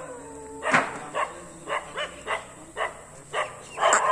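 A dog barking repeatedly, short barks about two a second, starting about a second in.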